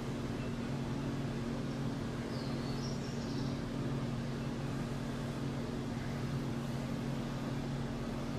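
Steady low mechanical hum over an even background hiss, with a few faint high chirps about two and a half seconds in.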